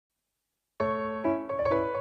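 Background piano music that begins after silence a little under a second in, with new notes struck every quarter to half second.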